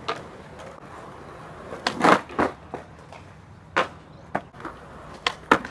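Skateboard hitting and clattering on concrete after a failed manual attempt on a concrete box. The loudest knock comes about two seconds in, followed by several sharp clacks of the board and wheels hitting the ground.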